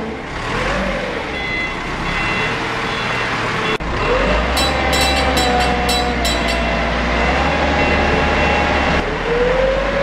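Forklift engine running, its pitch rising and falling as it moves. About four seconds in the sound turns heavier with a low rumble, and a quick run of sharp clicks follows.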